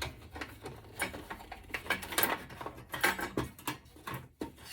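Irregular clicks, taps and scraping of electronic scrap being handled and worked apart: circuit boards and metal server parts knocking together.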